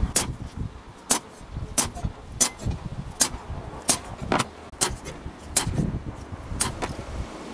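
Hammer tapping a steel centre punch on galvanized sheet steel laid over an anvil, about ten sharp metallic clinks at an uneven pace, marking rivet hole positions in the sheet.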